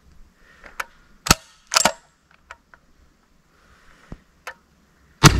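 Polish RGA-86 26 mm revolver grenade launcher firing flare/tracer rounds: two sharp bangs about half a second apart a little over a second in, then the loudest shot near the end with a rumbling tail. Light clicks come in between.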